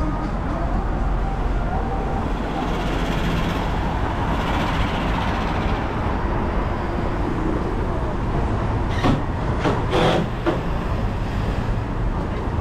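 City street traffic: a steady low rumble of passing vehicles, with a few short, sharp noises about nine and ten seconds in.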